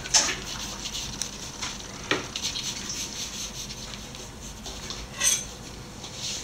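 Pencil scratching on paper while sketching an outline, in a run of short strokes with a few louder ones.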